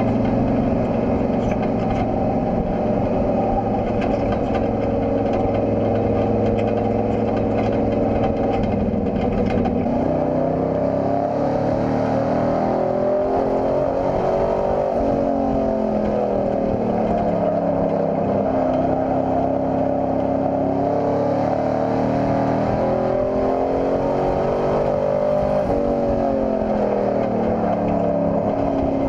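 Compact pickup race truck's engine heard from inside the cab, holding a steady pitch for about ten seconds, then revving up and dropping back several times as the truck laps the oval.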